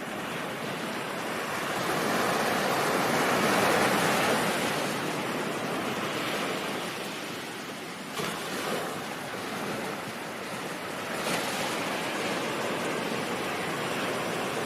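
Ocean surf: a continuous wash of breaking waves. It swells to its loudest a few seconds in, then eases, with a couple of shorter surges later.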